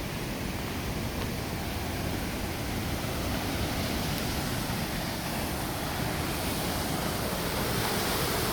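Steady rushing of a large waterfall: an even, dense hiss of falling water, growing slightly louder toward the end.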